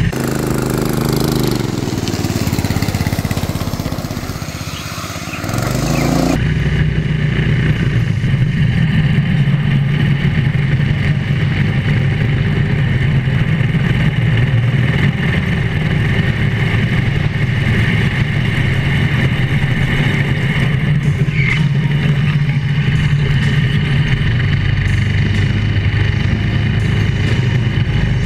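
Drift kart's small engine running: it eases off with its note falling over the first few seconds, then picks up about six seconds in and holds a steady drone under throttle for the rest.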